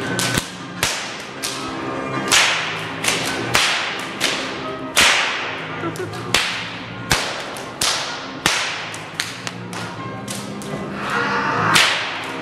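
A Hungarian herding whip (karikás ostor) being cracked over and over in a fast, irregular series of sharp cracks, some in quick pairs, each ringing briefly off the hall.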